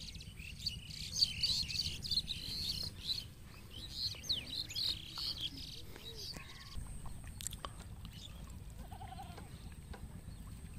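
Many small birds chirping and twittering in quick, overlapping calls, busiest over the first five or six seconds, then thinning to a few faint calls.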